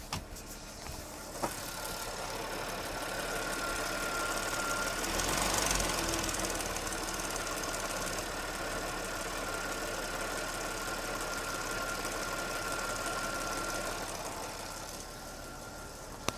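Audi A6 3.0 TFSI's supercharged V6 running shortly after a cold start. A steady high whine sits over it from about a second and a half in until near the end, and the noise swells briefly about five seconds in.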